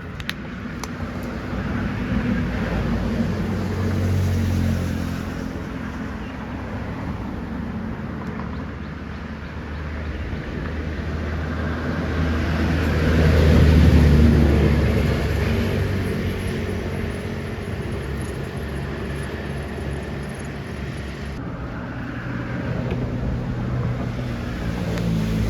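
Car running on the road: a steady engine drone with road noise, swelling louder about halfway through and easing off again.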